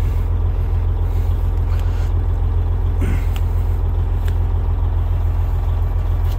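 Freightliner Coronado truck's diesel engine idling, a steady low drone heard from inside the cab, with a few faint clicks from prying at the dash switch.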